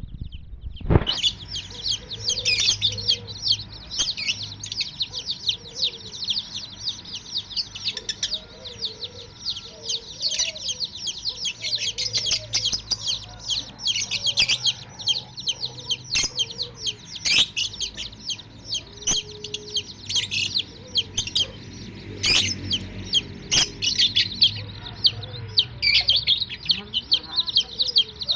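A group of baby chicks peeping continuously in dense, high-pitched chirps, with some lower calls mixed in and a few sharp taps.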